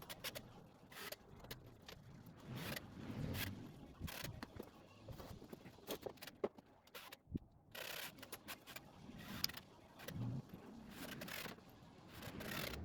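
Scattered clicks, light jingling and short scrapes of hardware and tools being handled, with occasional dull low thumps.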